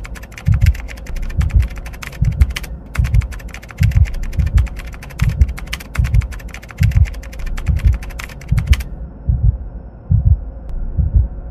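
Rapid keyboard-typing sound effect, clicks that stop about nine seconds in, over a steady low thudding beat at about one and a half beats a second.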